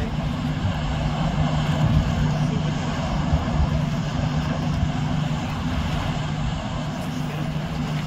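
Steady low engine drone holding one even pitch, with wind buffeting the microphone.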